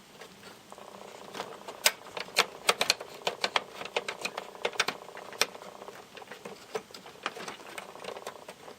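Irregular clicking and rattling of plastic power-supply cable connectors being handled and pushed into a PC's DVD drive, several sharp clicks a second at uneven spacing.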